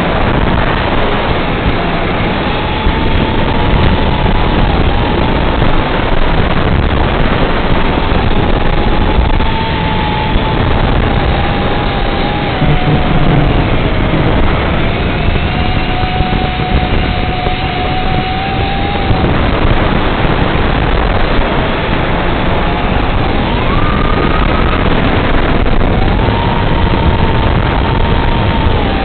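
FPV quadcopter's motors and propellers heard from its onboard camera: a steady whine whose pitch rises and falls with the throttle, climbing sharply near the end, over a heavy rush of wind and prop wash.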